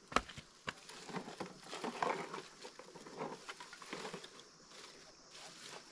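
Irregular light tapping, clicking and rustling, loudest about two seconds in.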